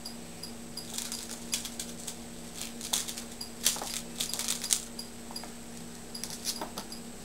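Kitten playing on a laminate floor: irregular light taps, clicks and skitters of small paws and claws, and a small toy ball being batted about, in scattered flurries.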